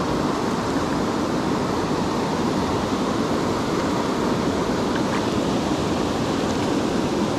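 Steady rush of a mountain stream, water pouring over a small cascade into a pool.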